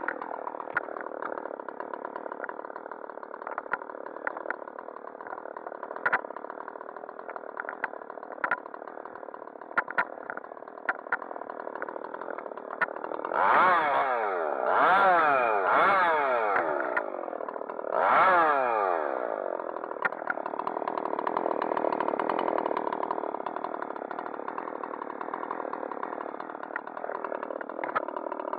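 Husqvarna 375 XP two-stroke chainsaw idling between cuts. About halfway through it is revved four times in quick succession, each rev climbing and falling back, before it settles to idle again.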